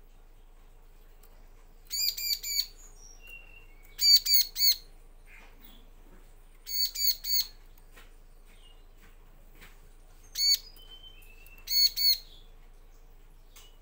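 Bar-winged prinia (ciblek) calling: five bursts of two to four short, sharp notes each, a couple of seconds apart, with a few faint thin whistles between them.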